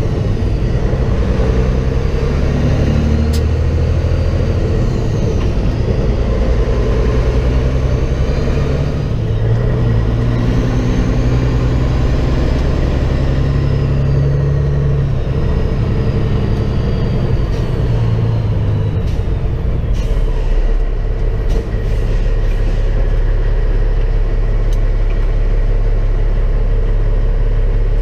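Semi truck's diesel engine running, heard from inside the cab as a steady low rumble whose pitch rises and falls as the truck slows and pulls through turns. A few sharp clicks come about three-quarters of the way through.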